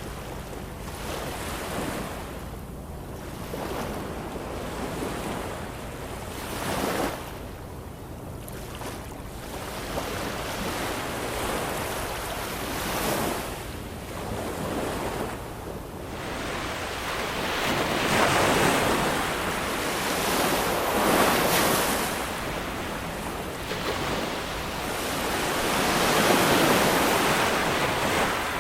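Ocean waves washing ashore, a continuous hiss of surf that swells and recedes every few seconds. The surges are strongest in the second half.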